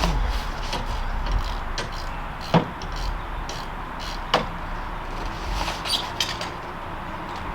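A few sharp knocks and clicks of tools and car parts being handled during brake and wheel-bearing work, the loudest two about two and a half and four and a half seconds in, over a faint steady tone.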